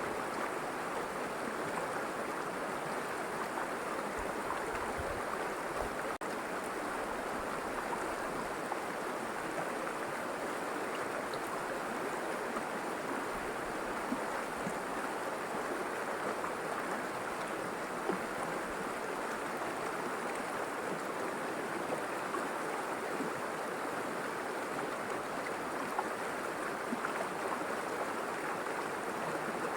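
River water flowing and rushing over stones in a steady, continuous stream, with a few faint splashes and clicks.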